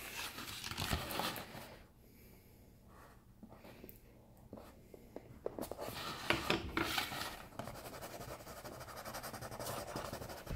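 A paper plate rustles as it is handled and set down. Then, from about halfway through, a crayon scribbles back and forth on the paper plate.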